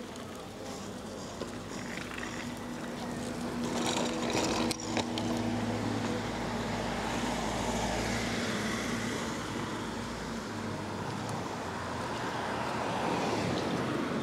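A motor vehicle's engine running nearby, its low hum growing louder about four seconds in and easing off after about ten seconds, with one sharp click about five seconds in.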